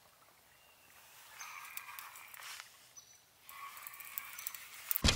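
Fishing reel being wound in two short spells while a hooked fish is played, a faint whirring with light ticks. A sudden loud knock comes right at the end.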